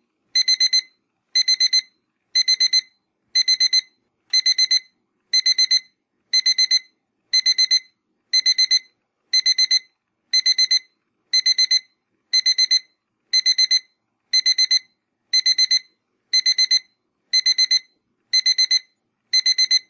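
Electronic timer alarm beeping for the end of a countdown: quick groups of four high beeps, repeated about once a second.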